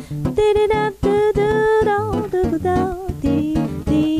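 A woman singing over a plucked acoustic guitar accompaniment, holding a long note about a second and a half in.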